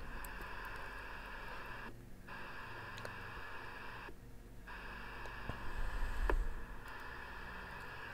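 Audioline 341 CB radio receiver hiss (static) from its speaker, steady but cutting out briefly a few times, with a soft low bump about six seconds in.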